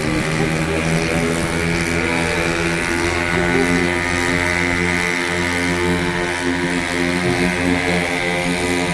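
Small motorcycle engine running at a steady speed, holding one constant pitch, as the bike travels along a high wire.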